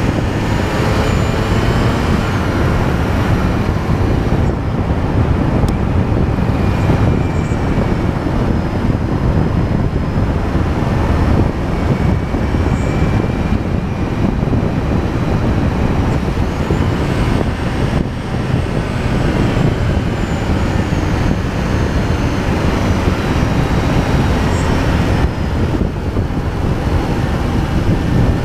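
Wind rush on the microphone and road noise from a vehicle moving steadily along an asphalt road, with a faint whine that rises and falls in pitch a few times.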